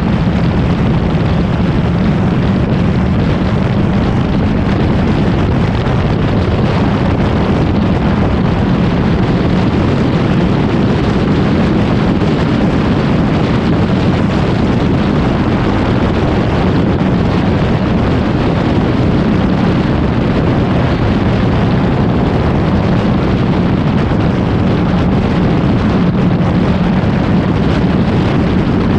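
Kawasaki Ninja motorcycle riding at a steady speed: loud, unbroken wind rush on the bike-mounted microphone with a steady engine hum underneath.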